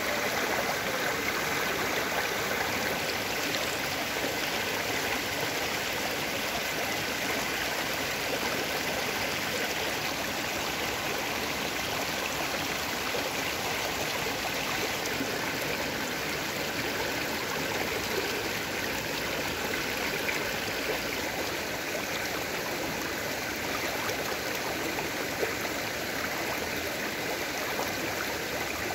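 Shallow mountain stream flowing and rippling over stones and pebbles: a steady rush of water.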